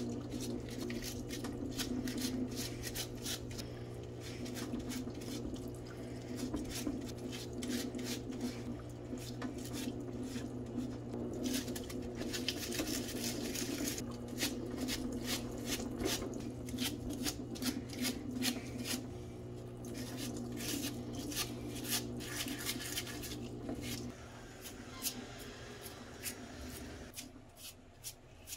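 Stiff brush scrubbing small metal power-ratchet parts in a parts-washer tub of sudsy solvent, with quick scratching, clicking and clinking of parts, over the steady hum of the parts washer's pump feeding the brush. The hum lessens near the end.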